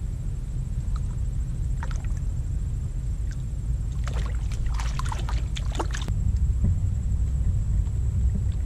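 Water splashing and dripping in a cluster of short bursts about four to six seconds in, as a hand releases a redfish into the water beside a kayak, over a low steady rumble.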